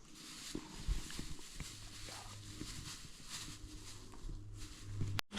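A steady low electronic tone comes in about one and a half seconds in and holds, then cuts off suddenly near the end. It is played from a speaker for a 68 Hz audio-frequency experiment. Under it, light rustling and footsteps in leaf litter.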